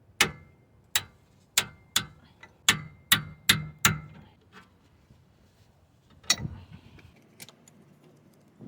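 Sharp metallic clicks from hand tools working the brake caliper bolts: eight in the first four seconds at about two a second, then one more about six seconds in and a few faint ticks.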